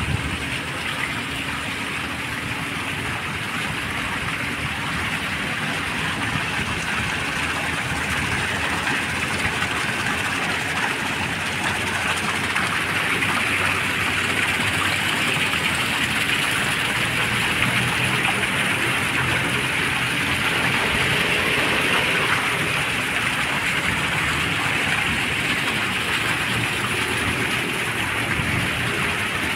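Fountain jets spraying and splashing into the water below, a steady rush of water, with a faint steady hum underneath.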